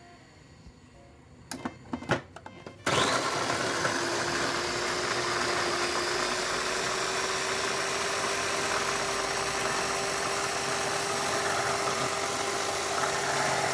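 A few light clicks, then about three seconds in a food processor's motor starts and runs steadily, its blade chopping peppers, tomato and onion; the motor's hum rises slowly in pitch as it runs.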